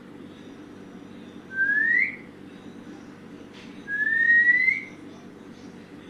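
Rose-ringed parakeet giving two loud rising whistles, a short one about a second and a half in and a longer, flatter one about four seconds in.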